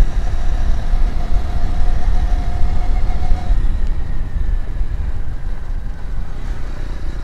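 Motorcycle running along at road speed, with wind buffeting the microphone in a heavy, uneven low rumble.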